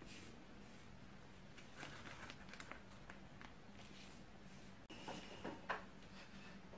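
Faint rustling and soft squishing of a piping bag as chiffon batter is squeezed into paper cupcake liners, over quiet room hum, with a single light tap near the end.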